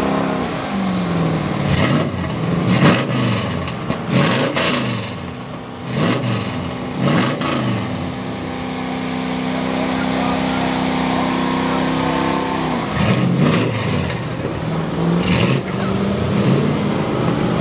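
Lifted mud truck's V8 engine revving hard up and down several times, holding a steady rpm for a few seconds near the middle, then revving up and down again, with several sharp cracks at the top of the revs.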